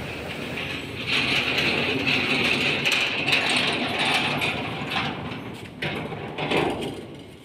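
Large sheet-metal gate being pulled open by hand, its steel grating and scraping for a few seconds, then a few metallic knocks as it comes to rest.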